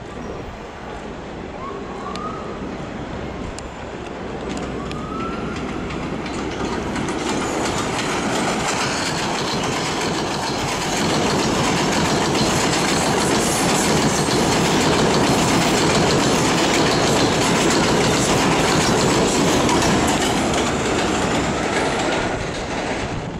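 New York City Subway 7 express train of R142A/R188 cars running through a station at speed on an elevated steel track without stopping. The noise builds as the train approaches, is loudest for about ten seconds as the cars go past, and falls away near the end.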